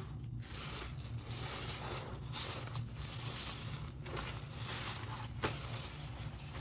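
Gloved hands squeezing and wringing a suds-soaked kitchen sponge in a sink of foamy cleaner water: wet squelching and crackling foam in repeated squeezes, with one sharp click about five and a half seconds in, over a steady low hum.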